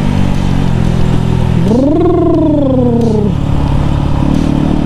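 Bajaj Pulsar NS200's single-cylinder engine running under way on a dirt track. About two seconds in, its pitch rises and then falls as it is revved up and eased off.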